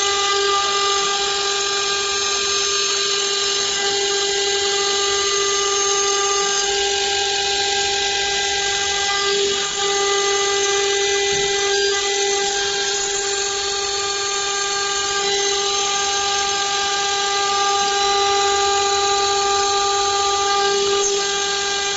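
CNC router spindle running with an end mill cutting a clamped metal plate: a steady whine made of several tones over the hiss of the cut.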